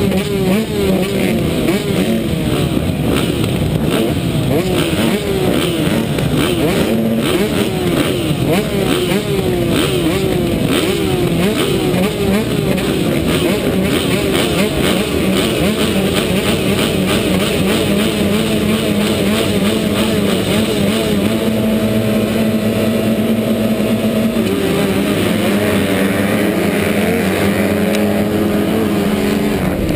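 A line of motocross bikes revving and blipping at the start gate, the two-stroke Yamaha YZ125 carrying the camera loudest among them. Around twenty seconds in the revs are held steady, then a few seconds later the engines climb in rising surges as the field launches off the start.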